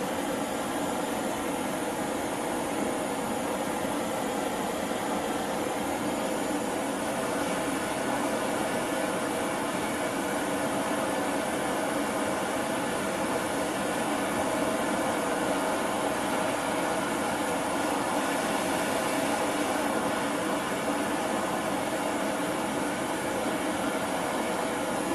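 High-temperature LPG/propane gas torch burning with a steady, even hiss that does not change.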